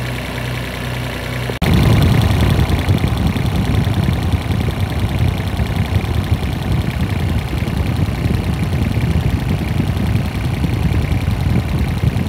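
Mini excavator's small diesel engine idling steadily. About a second and a half in, the sound switches abruptly to a louder, rougher rumble, heard close over the open oil filler neck.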